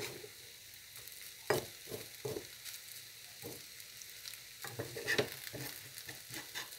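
Potato strips and egg sizzling steadily in a frying pan, with a spatula scraping and knocking against the pan several times.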